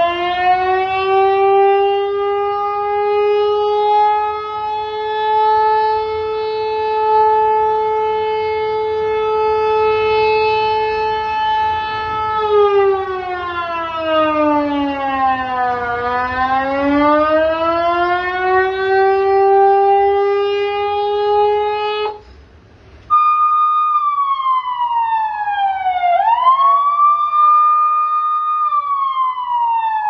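100-watt eight-tone electronic siren sounding through horn loudspeakers: a slow wail that rises, holds a steady pitch for about ten seconds, falls and climbs again, then cuts out briefly and switches to another tone, a falling sweep with a quick rise back up that repeats about every four seconds.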